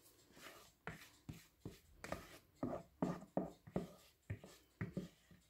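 A thin wooden stick scrapes orange sponge batter out of a plastic bowl into a parchment-lined baking tray. The quick, irregular scraping strokes come about three a second.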